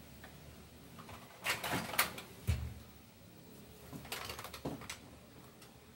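Faint clicks and light knocks from makeup being handled, a brush working against a small compact, in two short flurries with a low thump between them.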